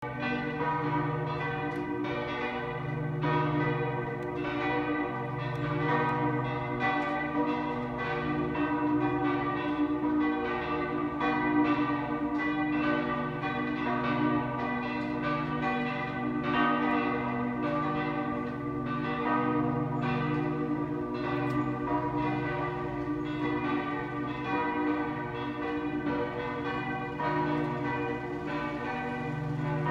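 Several church bells ringing together in a continuous peal, their many overlapping strikes and ringing tones sounding without a pause.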